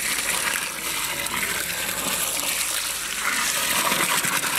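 A steady stream of water gushing and splashing into a large metal pot of raw mutton pieces, filling the pot over the meat.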